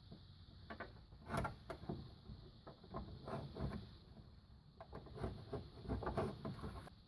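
Irregular knocks, clicks and rattles of tools and hardware being handled, a dozen or so scattered hits with a faint steady hum underneath.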